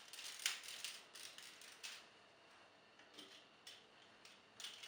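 Plastic parts of a transforming Titan Megazord toy clicking and knocking as they are handled and fitted together. There are several sharp clicks in the first two seconds, then it goes quieter, with a couple more clicks near the end.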